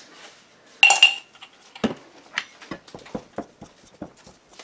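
A metal knife clinks once with a short ring about a second in. Then a metal pastry blender taps and scrapes against the mixing bowl, two or three strokes a second, as it cuts soft pork lard into flour for biscuit dough.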